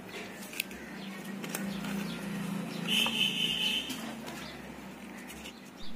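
A pigeon cooing low and wavering for about three seconds, with a short higher-pitched sound near the middle. Light clicks and rustling of paper leaflets and a plastic phone case being handled.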